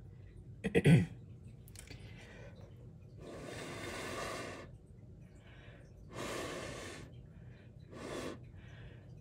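A person breathing audibly close to the microphone, with several long breaths a few seconds apart. A short, sharp, loud sound comes about a second in.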